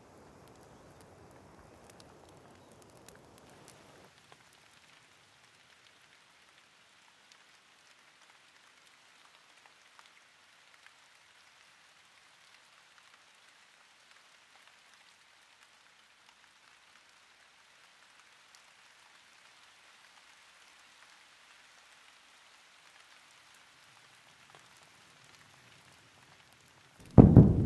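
Steady rain hissing, with scattered faint drop ticks. Near the end a sudden loud thunderclap breaks in and rumbles on.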